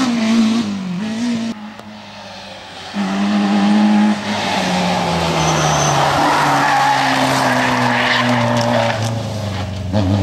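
Rally cars running hard on a tarmac stage. First a BMW E30's engine is heard pulling away; its note fades after about a second and a half. From about three seconds in a Peugeot 205's engine comes through, its pitch falling steadily as it passes, with tyres squealing through the corner.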